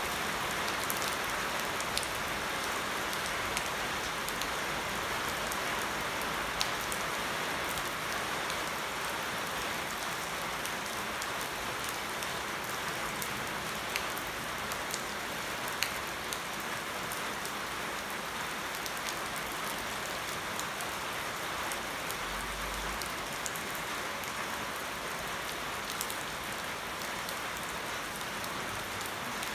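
Steady rain falling on leaves and on water standing over paving, an even hiss with scattered sharp ticks of nearby drops.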